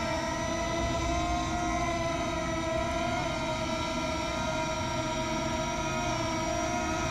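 FIMI X8 Mini quadcopter drone hovering, its propellers giving a steady multi-toned whine that wavers slightly in pitch, over a low rumble of wind.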